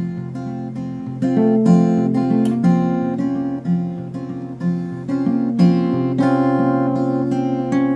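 Small graphite guitar fingerpicked in a polyrhythmic pattern, playing a slow ballad: a stream of plucked notes ringing over a held bass note.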